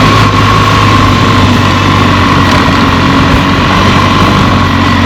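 Vehicle engine running steadily under a loud, even rush of road and wind noise, with a steady whine.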